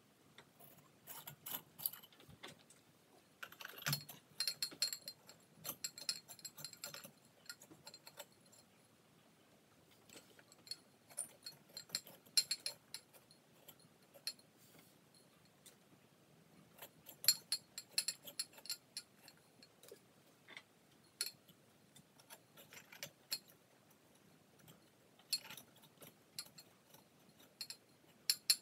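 Light, irregular clinks and small rattles of glass and metal as a frosted glass shade is handled and fitted on a ceiling fan's light-kit socket cup, some clinks ringing briefly.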